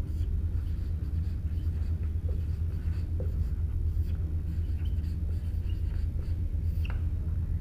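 Marker pen writing on a whiteboard: scratchy strokes with a few brief squeaks in the second half. A steady low hum runs underneath.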